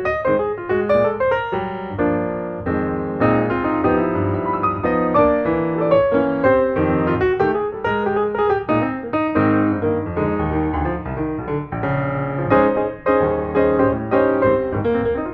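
Background piano music: a steady flow of notes with chords underneath.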